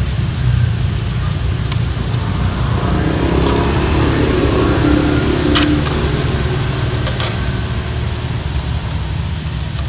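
Steady low rumble of road traffic, with an engine note standing out for a couple of seconds midway and a few faint clicks.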